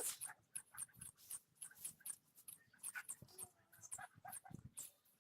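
Homemade slime being squeezed and kneaded by hand: faint, irregular wet clicks and squelches, a few each second.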